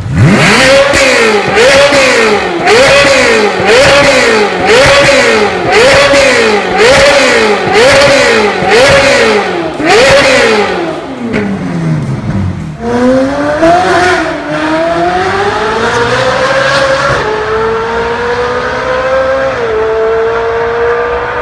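Ferrari 458 Italia's 4.5-litre V8 through a Fi Exhaust with its exhaust valves open, revved hard about ten times, roughly once a second, each rev rising and falling quickly. About twelve seconds in, it switches to a steady run with the note climbing in pitch as the car accelerates along a road, with two shifts in pitch.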